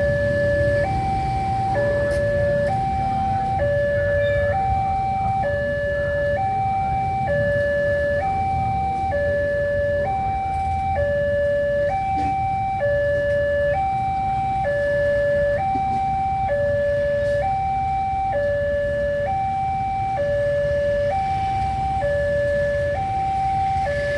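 Railway level crossing warning alarm sounding continuously: an electronic two-tone siren alternating between a lower and a higher note about once a second, the signal that a train is approaching and the barrier is down. A steady low rumble runs beneath it.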